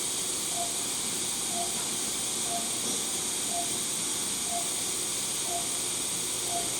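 Operating-room patient monitor beeping about once a second, a short mid-pitched tone that tracks the patient's pulse, over a steady high hiss.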